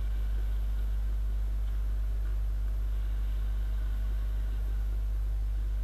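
Motorcycle engine running at a steady, unchanging pitch while riding, heard as an even low drone.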